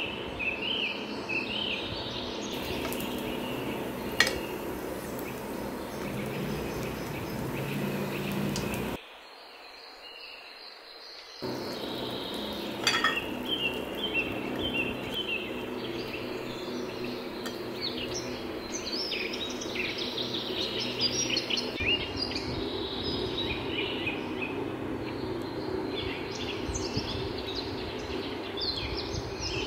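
Tacos frying in oil on a non-stick tawa, with a steel spoon clicking against the pan a couple of times, while birds chirp throughout. The sound drops away for about two seconds near the middle.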